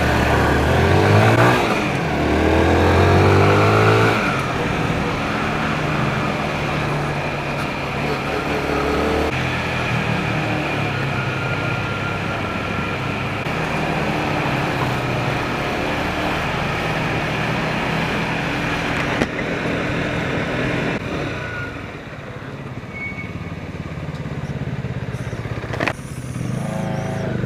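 Motorcycle engine pulling away, rising in pitch through a few gear changes, then running steadily at cruising speed with wind rushing over the microphone. It eases off about three-quarters of the way through and picks up again near the end.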